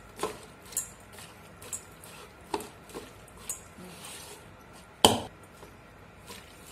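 Raw peeled prawns being mixed by hand with turmeric and salt in a steel bowl: light clinks and knocks against the bowl about once a second, with one louder knock about five seconds in.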